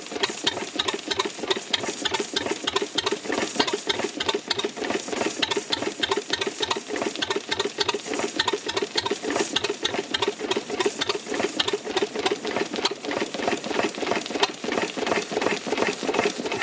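Standard Gas Engine Co. two-cylinder stationary gas engine of about 1905 running steadily: a fast, even clatter of mechanical clicks and knocks. It is kept running on petrol trickled into the priming cup instead of the producer gas it is set up for.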